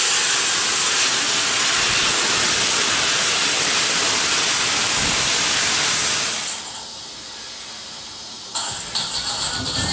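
A full-size steam locomotive, Peppercorn A1 Pacific 60163, venting steam at track level in a loud, steady hiss that dies away about six and a half seconds in. After a quieter couple of seconds, a model locomotive starts running along vintage Hornby O gauge tinplate track near the end, a rougher rattling sound.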